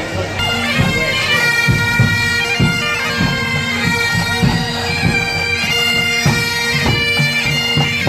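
Bagpipes playing a tune over their steady drones, with regular drumbeats.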